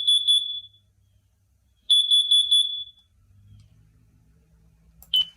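Carbon monoxide alarm sounding in groups of four quick, high-pitched beeps, the standard carbon monoxide alarm pattern. Two groups come about two seconds apart, and a single short beep follows near the end.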